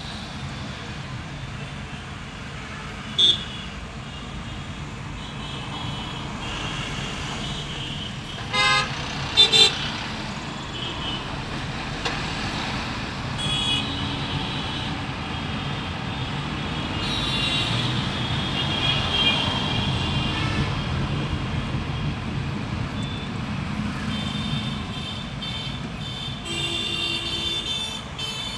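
Heavy city traffic heard from inside a car's cabin: a steady engine and road rumble with car horns honking again and again, the loudest a few short toots about nine seconds in.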